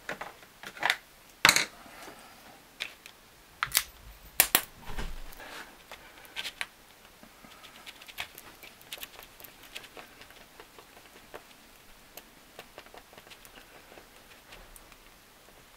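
Clicks and knocks of hands handling the epoxy and a clear plastic mixing tray, with several sharp ones in the first five seconds. After that comes a long run of light ticking and scraping as two-part epoxy is stirred with a small stick in the plastic container.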